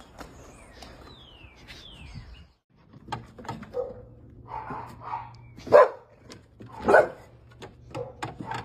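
A dog, a boxer, barking a few times; the two loudest barks come about six and seven seconds in. In the first two seconds there are short falling bird chirps.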